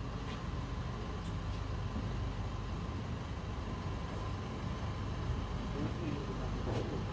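Steady low rumble of an idling vehicle engine, with a few faint clicks and knocks.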